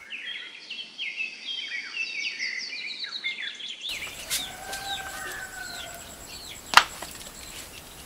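Small birds singing in a fast run of high chirps for about four seconds, then scattered bird chirps and a drawn-out chicken call. A single sharp knock comes about seven seconds in.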